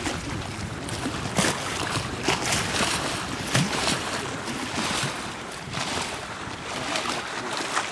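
Choppy lake water splashing and slapping irregularly against a concrete bank, with wind rumbling on the microphone.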